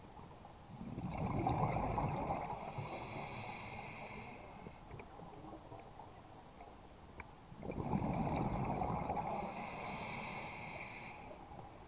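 Scuba diver breathing through a regulator underwater: two breaths about seven seconds apart, each a sudden rush of exhaled bubbles with a hiss that fades over a few seconds.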